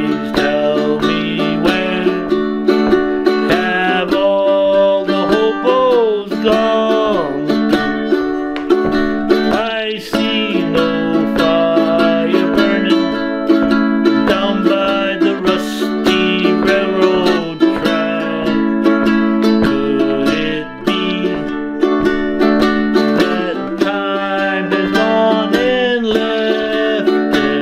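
Background music: a song on plucked strings, with a singing voice gliding through some phrases.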